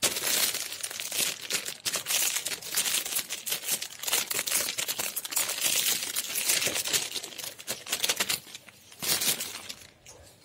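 Clear plastic wrapper crinkling and crackling as it is handled and pulled open: a dense run of crackles that thins out after about seven seconds, with one more short burst near the end.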